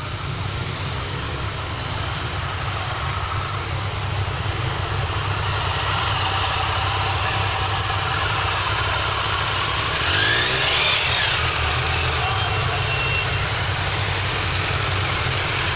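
Many motorcycle engines idling together in a steady low rumble that slowly grows louder. About ten seconds in, one engine briefly rises and falls in pitch above the rest.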